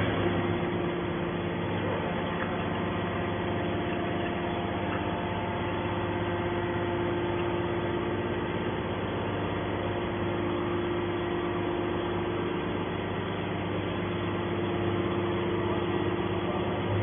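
Hydraulic scrap-metal baler running with a steady, even hum.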